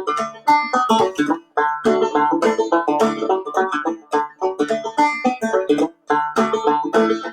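Clawhammer banjo playing an instrumental tune in quick plucked notes, with two brief breaks, about a second and a half in and near six seconds.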